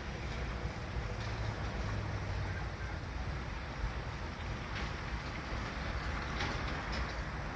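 Steady low rumble of background noise, with a few faint clicks in the second half.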